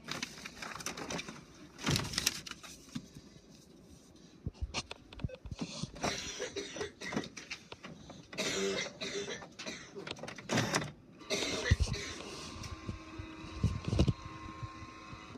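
Paper rustling and plastic clicks and knocks as sheets are handled on an HP Officejet 4500 all-in-one printer's open scanner glass. A faint steady hum comes in about eleven seconds in.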